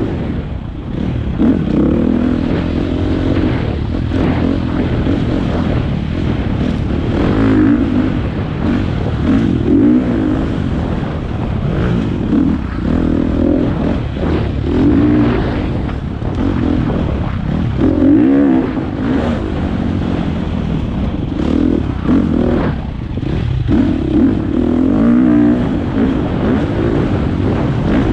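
Four-stroke single-cylinder dirt bike engine revving up and falling back every couple of seconds under changing throttle on a trail ride, with scattered knocks and rattles.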